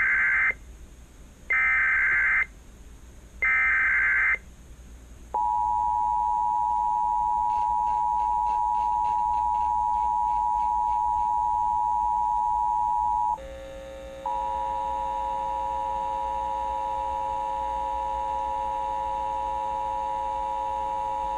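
Emergency Alert System tones from a Sage ENDEC: three SAME header data bursts of about a second each. They are followed by the steady two-tone attention signal, which breaks off for about a second past the middle, then resumes over a lower steady tone until near the end.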